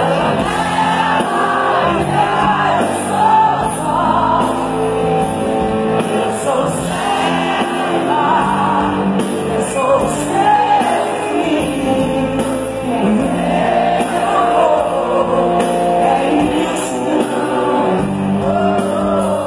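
Live concert performance: a female pop singer sings into a microphone over her band's steady backing, heard through the venue's PA from among the audience, with shouts from the crowd mixed in.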